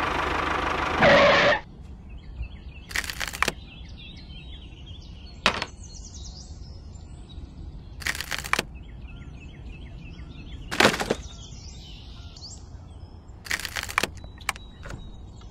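Coloured craft sticks clacking as they are picked up and dropped one after another onto a toy trailer, about six separate sharp clacks a few seconds apart, over faint birdsong. A loud sound fills the first second and a half and stops sharply.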